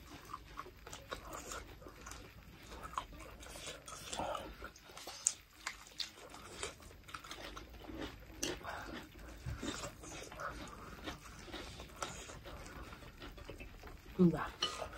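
Two people eating goat meat with their hands: chewing and lip-smacking mouth noises with scattered small wet clicks, and a brief hum-like voice sound near the end.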